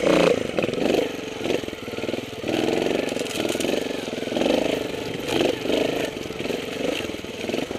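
Trials motorcycle engine running at low revs as the bike rides down a slope, its pitch rising and falling with the throttle.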